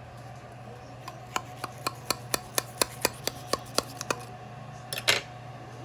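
Serving utensils on a baking dish of enchiladas: a run of light, quick clicks at about four a second, then one louder scrape near the end.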